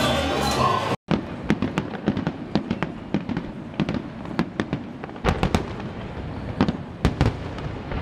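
Music and voices that cut off abruptly after about a second, then a fireworks display: a rapid, irregular series of sharp bangs and crackles from bursting aerial shells, with heavier booms and a low rumble from about five seconds in.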